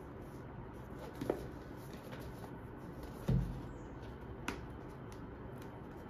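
A cardboard product box handled on a table: a few light taps and clicks of fingers on the cardboard, and one soft thump about halfway through as the box is stood down on the tabletop, over a steady low room hum.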